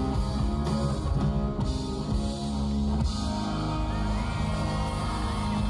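Pop-rock band playing live through the PA: electric guitars over a drum kit, with little or no singing in this stretch.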